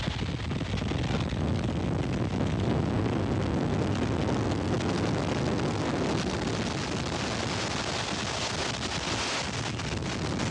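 Strong wind from an approaching tornado rushing and buffeting the camera microphone: a steady, heavy, low rushing noise.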